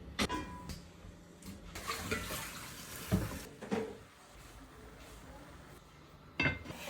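Kitchen tap water running briefly, among a few sharp knocks and clatters, the loudest one near the end.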